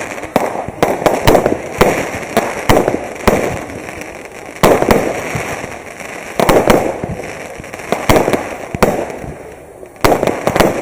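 Fireworks display going off: a rapid, irregular run of sharp bangs, some in quick clusters, each trailing off in a rumbling echo.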